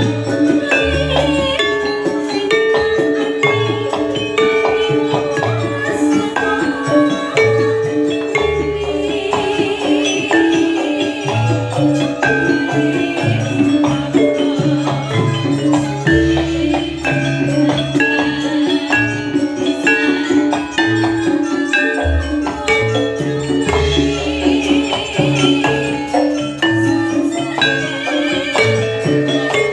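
Javanese gamelan playing jathilan music: bronze sarons struck with wooden mallets ring out a steady melody over low kendang drum strokes.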